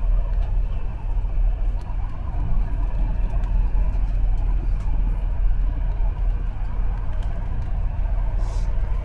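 Steady low rumble of a moving train running on the rails, with a few faint clicks.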